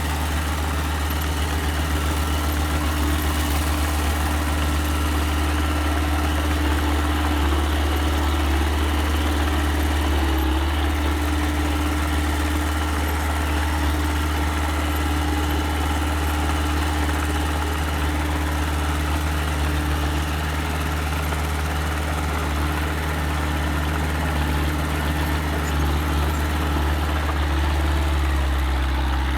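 Engine of a small earthmoving machine running steadily at an even speed, with a constant low hum.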